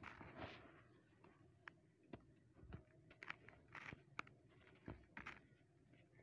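Dry, dusty clumps of gritty dirt crumbled between the fingers. A soft hiss of grit trickling down in the first second, then scattered faint crunches and crackles as pieces break apart.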